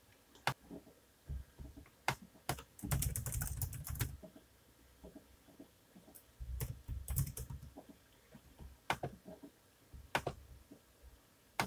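Computer keyboard typing in a quick run about three seconds in and another flurry past the middle, with single mouse clicks scattered between.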